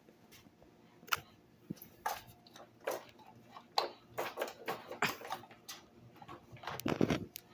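Scattered light clicks and taps at irregular intervals over a quiet background, with a louder clatter of knocks near the end.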